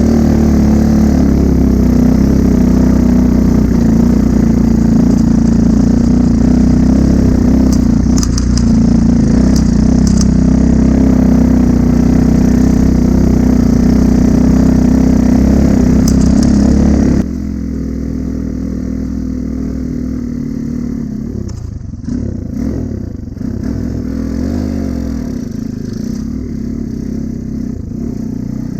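Honda Cub motorcycle engine running steadily under way. About two-thirds of the way through the sound drops suddenly to a quieter, uneven engine rumble with some clattering.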